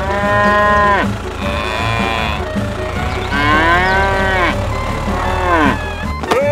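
Cattle mooing: about four long, drawn-out moos one after another, each dropping in pitch as it ends.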